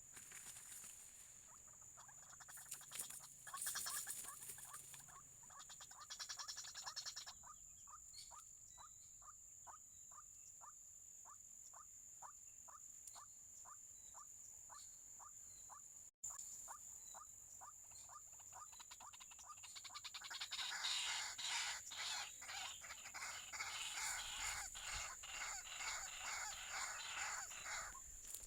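White-breasted waterhen calls: a regular series of short notes, about two or three a second, then a denser, louder run of croaking calls over the last third. A steady high whine runs underneath.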